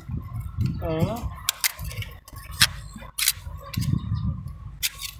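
Metal tools and parts clinking together in a string of sharp, irregular clicks, as when working on heavy machinery with hand tools.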